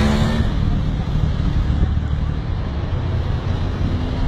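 Outdoor street noise: a vehicle engine running, with wind buffeting the microphone.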